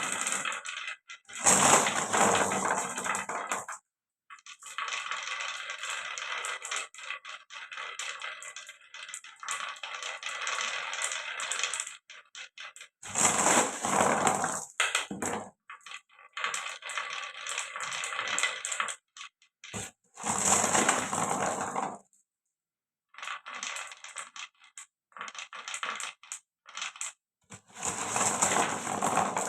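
Marbles rolling and clattering down marble run tracks: runs of dense clicking and rattling a few seconds long, with a few louder clattering bursts, broken by short gaps.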